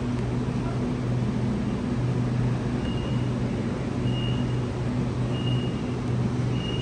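Waratah double-deck electric train standing at an underground platform, its onboard equipment giving a steady low hum. From about three seconds in, a faint short high beep repeats about every second and a quarter.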